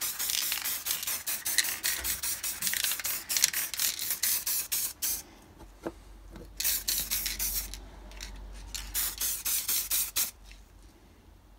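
Aerosol can of black spray paint in use, giving quick repeated hisses in three runs, with short pauses about five and about seven and a half seconds in. It stops a little before the end.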